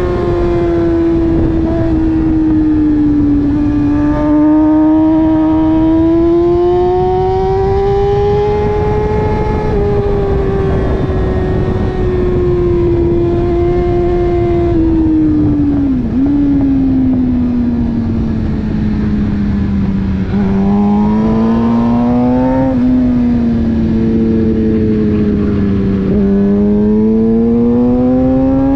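Motorcycle engine heard from on the bike at track speed, its note climbing and falling as the rider works the throttle through the corners. About three quarters of the way through it climbs quickly and then drops sharply, over a constant rush of noise underneath.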